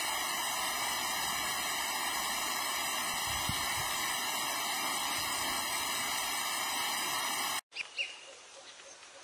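A loud, steady hiss like rushing water or white noise cuts off abruptly near the end. After it comes quieter outdoor ambience with a few short bird chirps.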